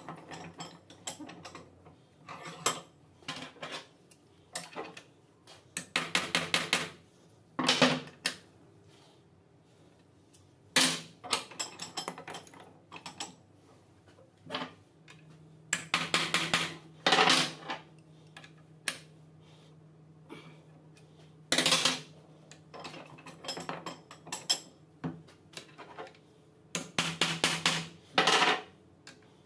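Metal hand tools clinking and tapping against a tractor starter motor's steel field-coil housing held in a bench vise. The sound comes in short clusters of rapid metallic strikes every few seconds.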